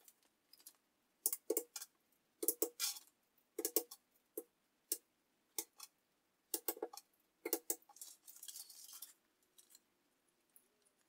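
3D-printed plastic LED-strip holders snapping into the aluminium extrusion of a CNC router gantry: a string of sharp plastic clicks, often in quick pairs, with a brief rustle near the end.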